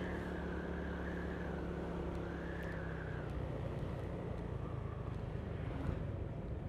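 Steady low hum of a vehicle's engine and road noise while driving, with a faint wavering whine above it.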